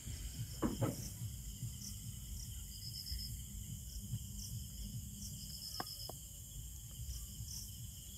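Crickets chirping at night in repeated short high trills over a steady low background hiss, with a few faint short clicks.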